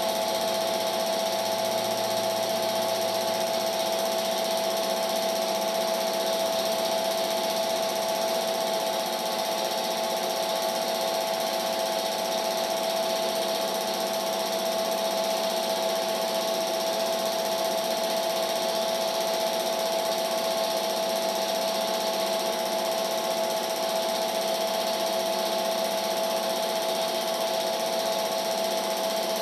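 Cine film projector running: a steady mechanical whirr over a constant hum.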